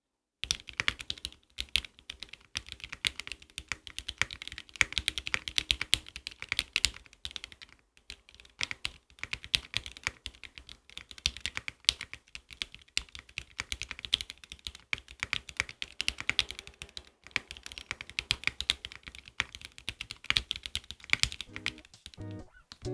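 Fast, continuous typing on a Matrix Lab Corsa 65% mechanical keyboard with restored vintage Cherry MX Black linear switches on an aluminium plate, no foam, and GMK keycaps: a dense clatter of keystrokes, broken by two brief pauses.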